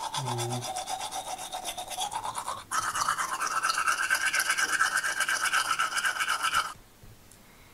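Toy toothbrush scrubbing the plastic teeth of a toy dinosaur in fast up-and-down strokes: a rapid rasping scrub whose pitch jumps higher about three seconds in, stopping suddenly near the end.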